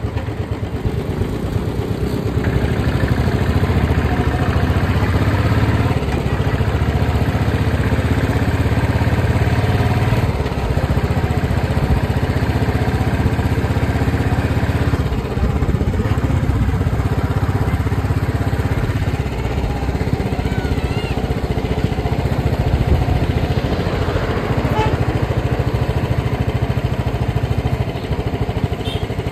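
Motorcycle engine running steadily while riding along a road, its note shifting every few seconds.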